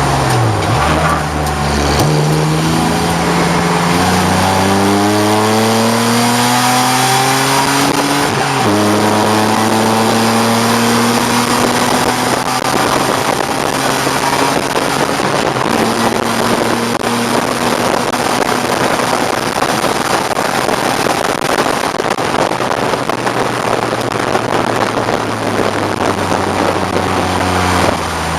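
1989 BMW 535i's straight-six engine at racing speed under load. It dips in pitch at the start, then climbs steadily for about seven seconds and drops with an upshift about eight seconds in. After that it holds a nearly steady, slowly rising pitch over a loud, steady rush of noise.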